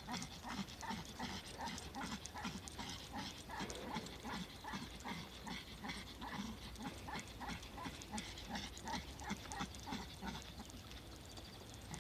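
Small dog panting quickly and rhythmically while trotting on a leash, about three breaths a second.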